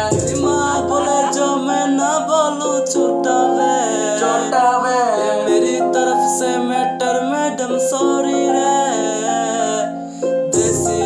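Music: a male voice singing a melodic line over an instrumental backing. The bass drops out about a second in and comes back near the end.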